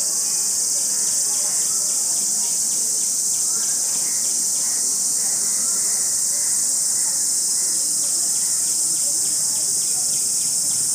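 Chorus of forest insects, a loud, steady high-pitched drone, with a fainter pulsing call repeating about three times a second through much of it.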